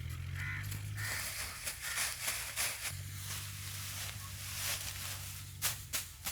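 Dry, harvested rice straw rustling and crackling as it is handled and gathered into bundles, with a few sharp snaps near the end. A steady low hum runs underneath.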